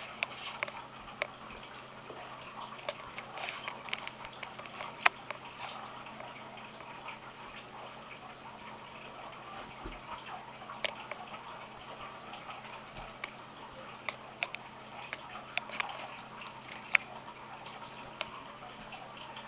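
A puppy and a kitten play-fighting on carpet: scattered soft taps, scuffles and small clicks from paws, claws and mouthing. A few sharper clicks stand out.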